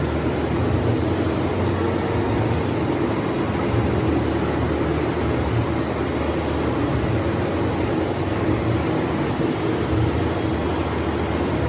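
CNC router running steadily, a continuous machine noise with a low hum and a steady tone in it.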